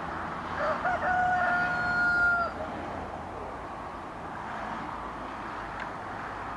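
A rooster crowing once: a short rising start, then a long held note lasting about a second and a half, over steady background noise.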